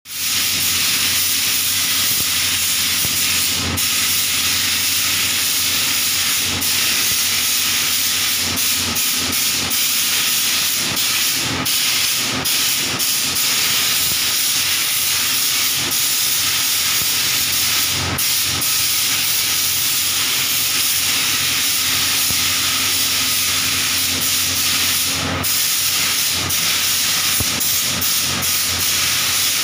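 Compressed-air paint spray gun hissing steadily while spraying paint, with brief dips a few times and a steady low hum underneath.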